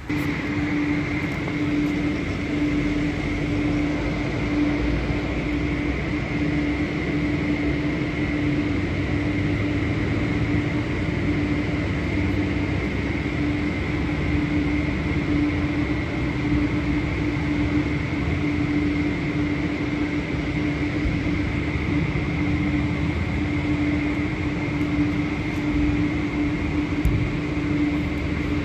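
Automatic car wash air dryer blowers running, a steady loud rush of air with a low hum and a high whine held over it.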